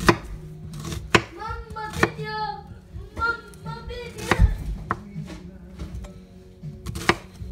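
Chef's knife chopping a red onion on a cutting board: several sharp knocks of the blade striking the board at uneven intervals, a second or more apart, over background music with a voice.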